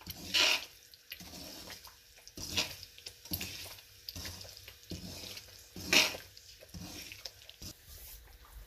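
Slotted metal spatula scraping and stirring semolina as it roasts in oil in a stainless steel pan, over a soft frying hiss. The scrapes come irregularly, the loudest about half a second in and about six seconds in.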